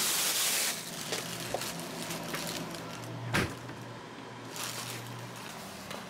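Plastic food containers being handled and set into a refrigerator: a burst of rustling at the start, then a low hum and one sharp knock about three and a half seconds in.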